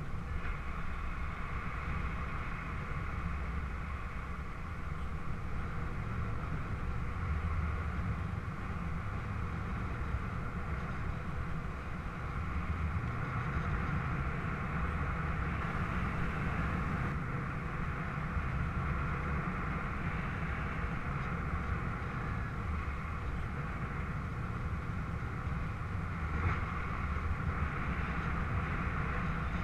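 Steady wind noise from airflow over a camera microphone mounted on a paraglider in flight: a low rumble with a hiss above it.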